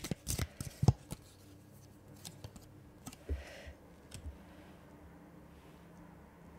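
Tarot cards being handled and laid on a glass tabletop: a quick run of sharp clicks and taps in the first second or so, then a few softer taps and a faint rustle.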